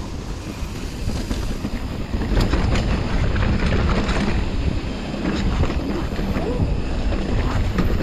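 Mountain bike rolling fast down a wet dirt trail: a steady rush of wind on the microphone over tyre rumble, with frequent clicks and knocks from the bike jolting over bumps, getting louder about two seconds in.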